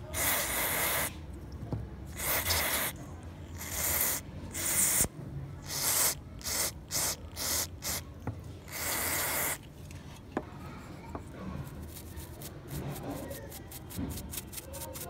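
Aerosol spray can hissing through a thin straw nozzle onto a small circuit board in a dozen or so bursts, the later ones shorter and quicker. After about ten seconds the spraying stops and a bristle brush scrubs softly over the board.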